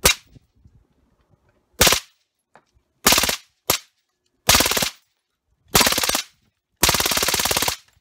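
Suppressed FN P90 submachine gun firing on full auto in seven short bursts, each a rapid string of shots. The bursts get longer as they go, and the last runs about a second.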